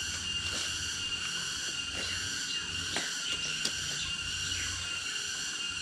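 A steady, high-pitched chorus of insects, crickets or cicadas, droning without a break, with a couple of faint clicks near the middle.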